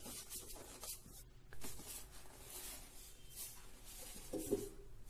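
Faint rustling and scraping of a polystyrene foam packing insert and a cardboard box being handled, with a few light knocks.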